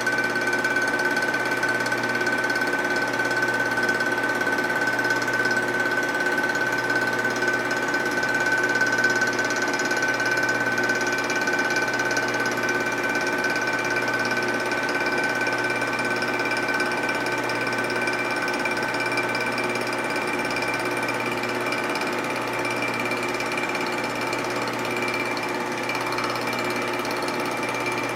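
Vertical milling machine running with a steady whine as its cutter takes a light finishing cut in an aluminium Harley-Davidson knucklehead crankcase, the work turned slowly on a hand-cranked rotary table.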